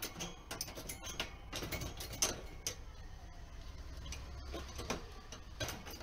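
Irregular clicks and taps of an African grey parrot's beak and claws against its wire cage as it climbs and moves about.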